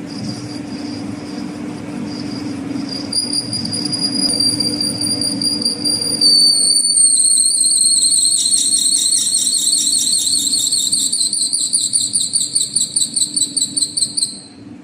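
Lathe tool bit screeching against a metal flange face during a facing cut, over the steady hum of the running lathe. The high-pitched screech builds, starts pulsing rapidly near the end, then cuts off suddenly as the cut stops.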